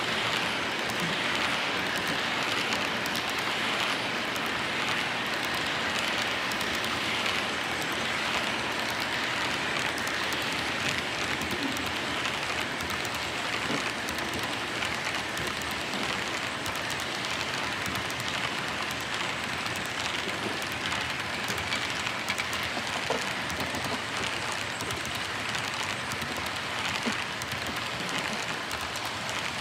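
Model intermodal freight train's cars rolling past on the layout track: a steady, dense clatter of small metal wheels on rail.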